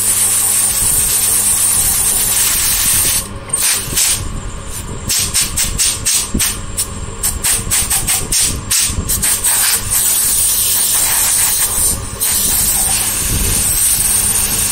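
Bench drill press running with its bit cutting into thick aluminium plate: a steady motor hum under a loud hiss, broken by rapid, uneven stutters for several seconds in the middle. The bit is not yet cutting smoothly.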